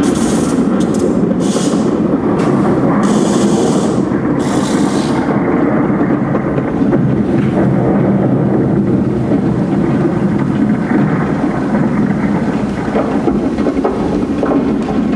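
Loud, steady rumbling stage sound effects over the show's sound system, with five short hissing bursts in the first five seconds, as flames and fog erupt on the set.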